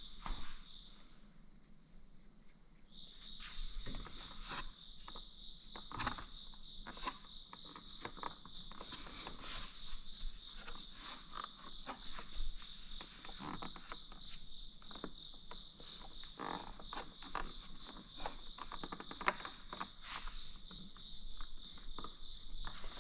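Insects trilling steadily in two high pitches, the lower one dropping out for a couple of seconds near the start and again near the end. Scattered clicks and knocks throughout.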